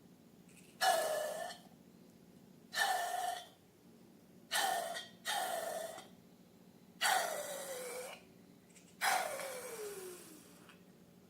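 Air rushing out of a rubber balloon's neck in six short releases. Each is a hiss with a squealing tone that falls in pitch; the last release is longer, with a slow downward glide.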